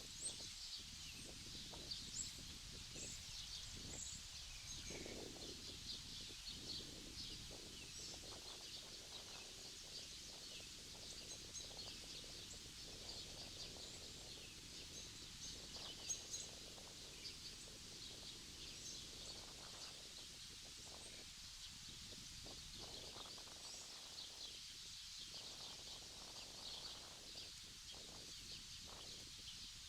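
Many small birds chirping continuously, faint, with a low outdoor background haze and a few soft low knocks underneath.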